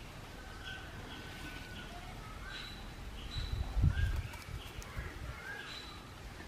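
Several birds chirping and calling repeatedly, short notes and little rising glides over one another. About three and a half seconds in, a brief low rumble rises over them and is the loudest sound.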